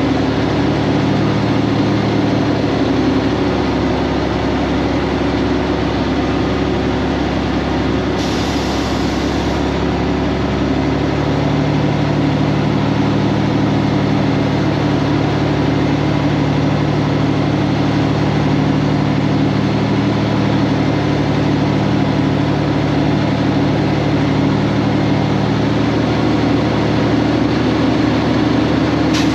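Cummins X15 diesel engine of a Kenworth W900 semi truck running steadily, with a short hiss about eight seconds in.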